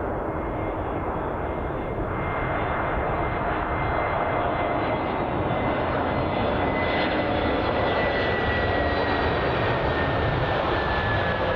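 Airbus A321neo's Pratt & Whitney PW1100G geared turbofan engines on landing, a steady whine over a broad rumble that grows slowly louder and drops gently in pitch in the second half as the jet goes past.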